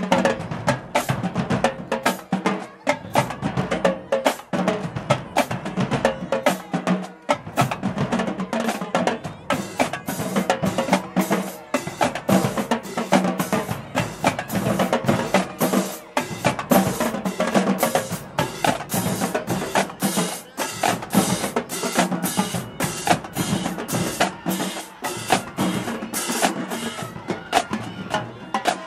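Marching band drumline of snare drums, bass drums and crash cymbals playing a steady, driving beat.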